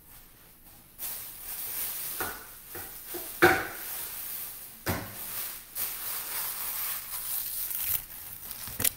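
Handling noise close to the microphone: a few sharp knocks and bumps over a steady rustling hiss that starts about a second in.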